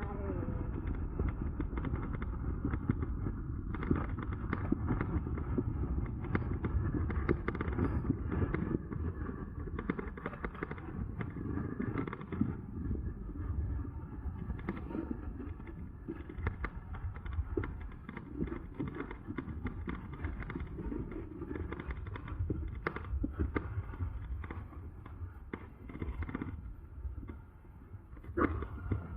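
Wind buffeting the microphone and road rumble from an electric bike ridden fast on pavement at full pedal-assist power, with scattered knocks and rattles from bumps.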